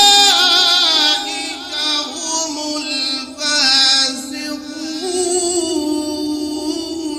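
A man reciting the Quran in the melodic tilawat style, drawing out long ornamented notes with a wavering pitch. He pauses briefly about halfway through, then holds a long note near the end.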